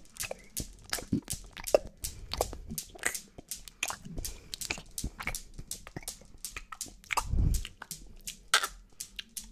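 Mouth sounds made right up against the microphone: irregular wet clicks and smacks, with a low puff of air on the mic about seven and a half seconds in.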